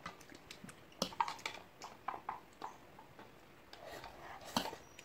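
Quiet eating sounds: scattered light clicks of a fork and chopsticks against bowls along with chewing, then a soft slurp as broth is drunk from a bowl near the end.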